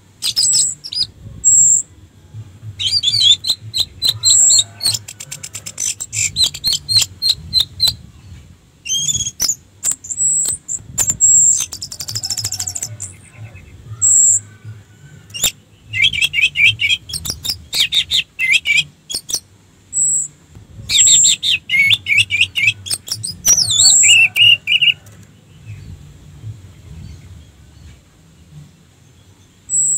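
Orange-headed thrush singing in short bursts of high whistles, fast trills and rapid clicking notes, with brief pauses between phrases and a quieter stretch near the end.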